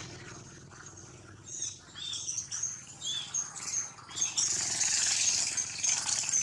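Infant macaque crying: a string of short, high squeaks starting about a second and a half in, breaking into a louder, continuous high-pitched scream a little after the middle.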